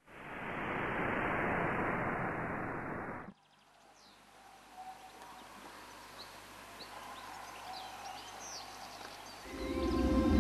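A loud rushing noise for about three seconds that cuts off suddenly, followed by a faint outdoor ambience with scattered bird chirps. Music with a heavy low beat comes in near the end.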